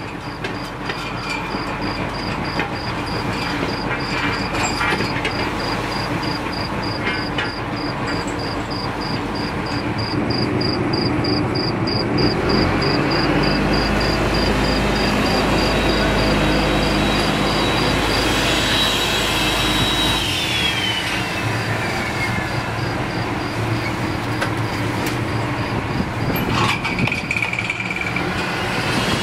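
A fishing trawler's engine running steadily under way, with wind and rushing water over it. A faint high ticking repeats about four times a second, and a high whine rises, holds for several seconds, then falls away about two-thirds of the way through.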